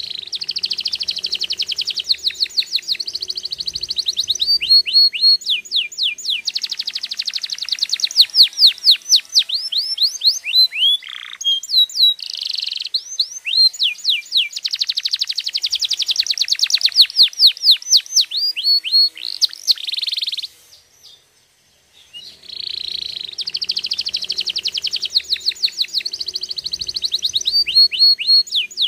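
Domestic canary singing a long song of fast trills and rapidly repeated downward-sweeping notes, breaking off for about a second and a half about two-thirds of the way through before starting again.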